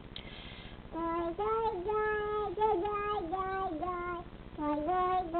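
A girl's voice imitating a baby's babble: the word "girl" repeated over and over in a high, squeaky pitch as short syllables that step up and down, with a short breath just before it starts and a brief pause a little past the middle.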